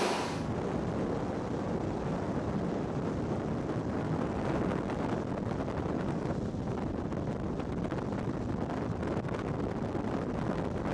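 Wind buffeting the microphone over a steady rush of water and engine noise from a motor cruiser running at speed.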